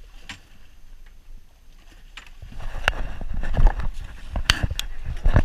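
Scattered knocks and clatters against a small fibreglass boat. About two and a half seconds in, a low rumble comes up and the knocks grow louder and more frequent.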